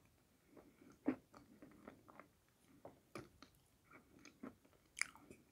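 Close, quiet mouth sounds of eating a thick wet clay paste from a spoon: scattered soft wet clicks and smacks of chewing, a sharper one about a second in and a small cluster near the end.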